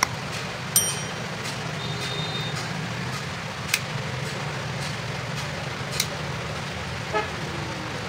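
Sharp clicks and light knocks from the metal frame and plastic module of a wall socket being handled and snapped together, about five spread through, one about a second in with a brief metallic ring, over a steady low hum.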